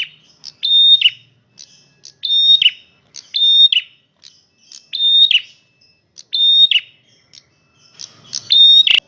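Male prenjak merah songbird singing loudly: one short, sharp, high-pitched phrase about once a second, each held briefly and then dropping at its end, with a pause of about a second in the middle. A single sharp click near the end.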